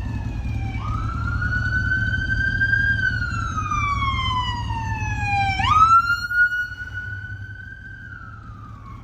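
Emergency vehicle siren wailing: its pitch jumps up quickly, then falls slowly, about every five seconds. Under it runs a low rumble that drops away about six seconds in.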